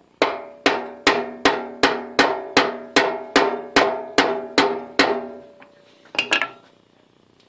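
Plastic-faced hammer striking a keyway broach set in an aluminium pulley, about thirteen even blows a little over two a second, each leaving a short metallic ring; to drive the broach through the pulley bore without a press. Two quick lighter knocks follow near the end.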